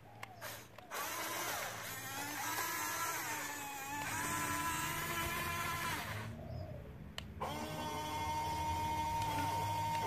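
Huina RC crawler crane's small electric motors whining as it drives on its tracks, the pitch rising and falling. The whine stops briefly about six seconds in, then starts again with a steadier pitch.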